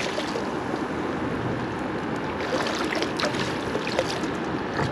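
Small waves lapping and sloshing against a kayak's hull, a steady wash of water with a few faint small splashes.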